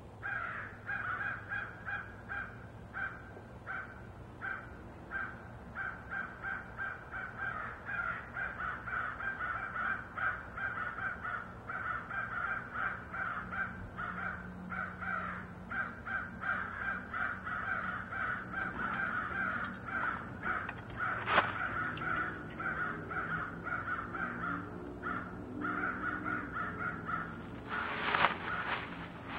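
Crows cawing over and over in a busy chorus, harassing something in the trees. A sharp click comes about two-thirds of the way through, and a short, louder noisy burst comes near the end.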